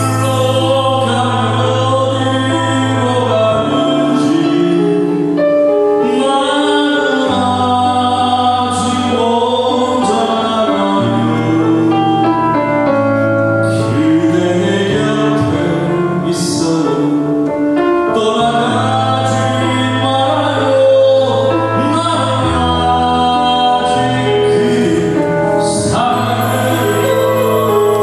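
Live band playing a slow pop song, with low bass notes held a couple of seconds each under a male voice singing into a microphone.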